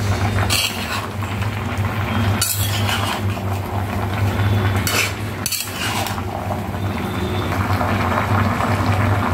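A metal spatula stirs and tosses chunky mixed vegetables in a large black wok, with about four sharp scrapes of the spatula against the pan. A steady low hum runs underneath.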